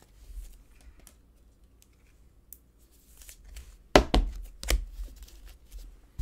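A trading card slid into a clear plastic sleeve with a faint rustle, then about four seconds in a quick run of sharp taps and knocks as the sleeved card and hands come down on the cards and tabletop.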